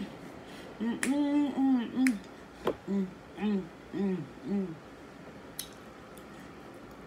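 A woman humming a tune with her mouth closed, in two runs of short rising-and-falling notes, with a few sharp clicks between them.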